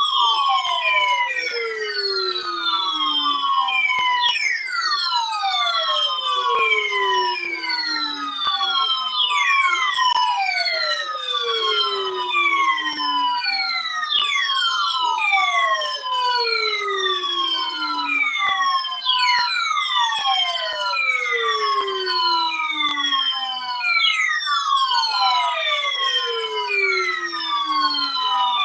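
Electronic siren-like alert tone: many overlapping pitches glide downward together, and the sweep starts over about every five seconds.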